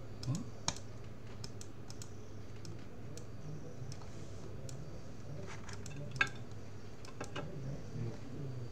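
Irregular clicks and keystrokes at a computer keyboard and mouse, some sharper than others, over a steady low hum.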